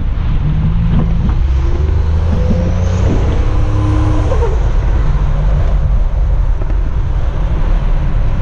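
1987 Buick Grand National's turbocharged 3.8-litre V6 running under way with a steady low drone, a rising whine coming in about three seconds in.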